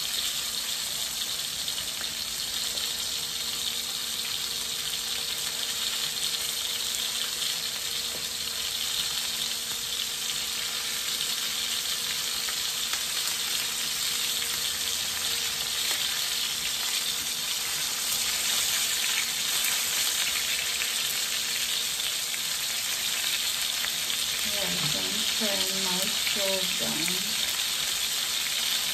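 Cod fillets pan-frying in oil with garlic and herbs: a steady sizzle throughout.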